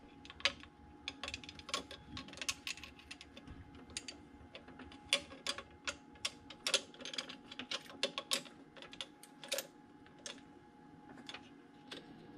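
Irregular sharp clicks and taps of a steel bracket and a car hood-latch assembly knocking together as they are handled and fitted over each other.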